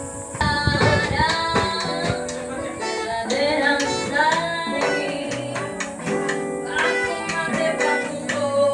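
Background song: a singing voice over plucked guitar.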